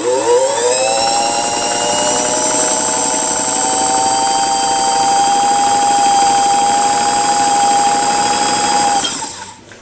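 Freshly oiled Singer 257 Fashion Mate sewing machine running under its foot control: a steady whine that rises in pitch as the motor spins up in the first second, holds for about eight seconds, then stops.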